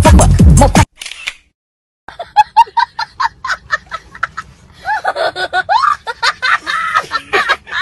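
Electronic music with a beat cuts off about a second in. After a short pause comes high-pitched laughter: quick giggling bursts at several a second, then longer squealing laughs that rise and fall in pitch.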